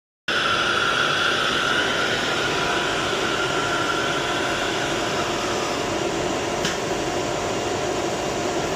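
CNC router spindle cutting grooves into primed panel boards: a loud, steady high whine over a rushing noise, its pitch sinking slightly over the first few seconds.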